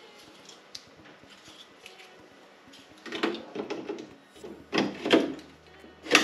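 Handling noise of cables and parts being moved and rubbed about on a workbench. A rustling scrape begins about three seconds in, two louder rubs follow, and a sharp knock comes near the end.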